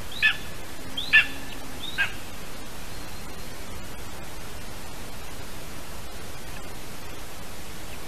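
Lesser spotted eagle at the nest giving three short, high yelping calls in the first two seconds, each dropping quickly in pitch, over a steady hiss.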